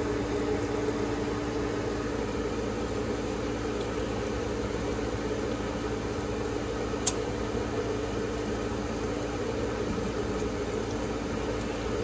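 Draft inducer motor of a Carrier 90-plus high-efficiency gas furnace running with a steady hum, with a single sharp click about seven seconds in.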